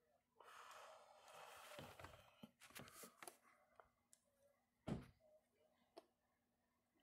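Faint indoor room tone with a soft breathy hiss in the first two seconds, then scattered small clicks and knocks, the loudest one about five seconds in.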